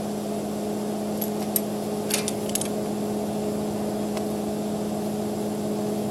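Steady hum of the stick-welding machine running at idle, with no arc struck. A few light clicks of metal on metal come between one and three seconds in, and once more after four seconds.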